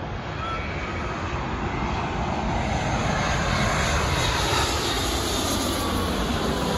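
Twin-engine jet airliner on final approach, gear down, passing low overhead: jet noise that swells as it nears, with a high whine that falls in pitch as it goes over.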